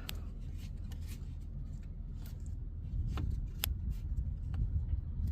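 Scattered light clicks and scrapes of a flathead screwdriver turning a plastic oil drain plug loose in the oil pan, over a steady low rumble.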